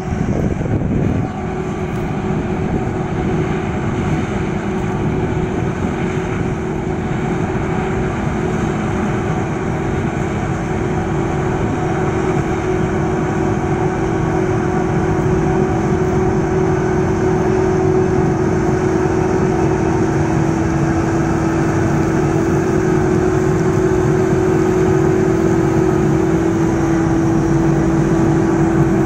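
Krone Big X 1100 self-propelled forage harvester chopping maize, with a Massey Ferguson 8730 tractor and trailer running alongside. A steady engine and machine drone with a constant hum, growing slowly louder as they come closer.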